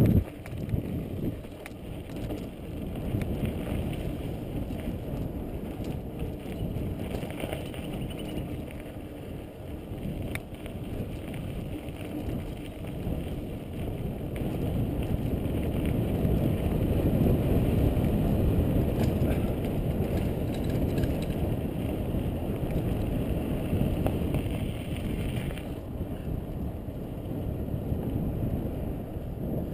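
Bicycle rolling fast downhill on a dirt track: a steady low rush of tyre noise and wind on the action camera's microphone, with a few faint rattles. It grows somewhat louder about halfway through.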